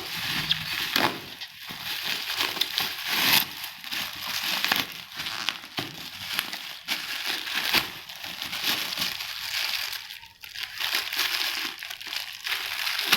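Plastic packaging crinkling and crackling as it is handled, crumpled and pulled open.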